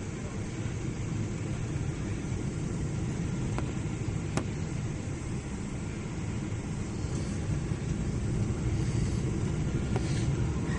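Cabin noise inside a Boeing 777-300 airliner on approach: a steady low rumble of engines and airflow, with a faint click about four seconds in.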